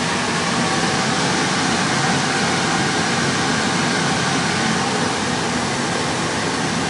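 Steady rushing of the forced-air cooling blower on a 3CX6000A7 6-meter linear amplifier, running while the amp is keyed with a carrier.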